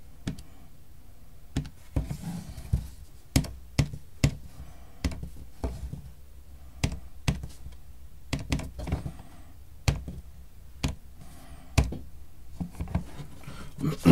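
Buttons of a handheld scientific calculator pressed one at a time, a run of irregular clicks and taps, as a value is worked out. Between the key presses a pen scratches briefly on paper.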